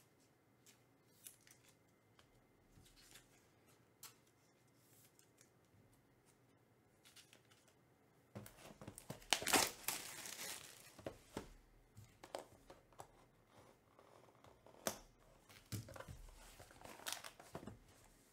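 Clear plastic crinkling and rustling as trading cards are handled and slipped into plastic sleeves and holders. A few faint clicks at first, then a long crinkle about eight seconds in, followed by shorter crinkles and clicks.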